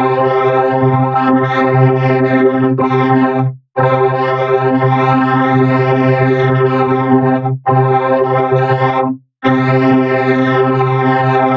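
Music: a steady, buzzing synthesizer drone held on one pitch, run through a sweeping phaser-like effect. It cuts out briefly three times, once about a third of the way through and twice close together a little past halfway.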